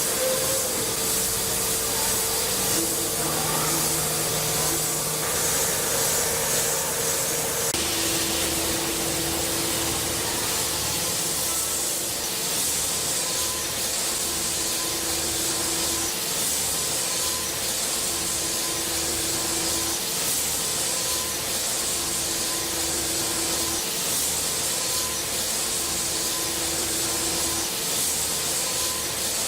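CNC machine running during metal cutting: a steady hiss over a steady whine, with a lower tone that switches on and off about every two seconds.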